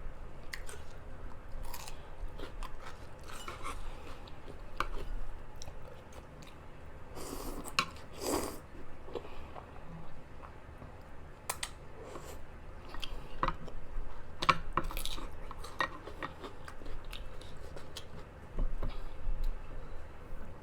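A person chewing food close to the microphone, with crisp crunching bites and many small wet mouth clicks.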